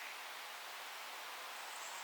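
Steady, even background noise of a forest, with no bird calls in this stretch.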